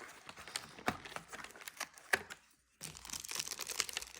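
Packaging crinkling and crackling as the next fishing lure is unwrapped from an advent calendar compartment, with a brief lull a little over two seconds in before the rustling starts again.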